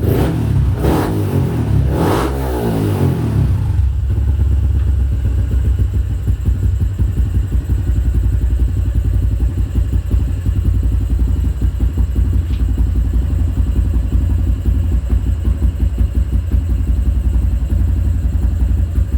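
Yamaha Crypton X single-cylinder four-stroke engine with a 62 mm bore. It is revved in two quick blips about one and two seconds in, then settles into a steady, lumpy idle.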